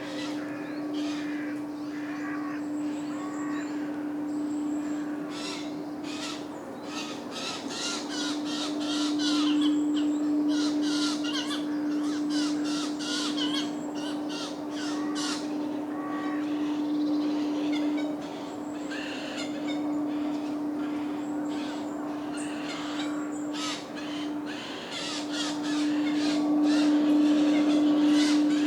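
Eurasian jays and their chicks calling at feeding: long runs of rapid, harsh rasping calls, busiest in the middle and again near the end. Smaller birds twitter and whistle faintly, over a steady low hum.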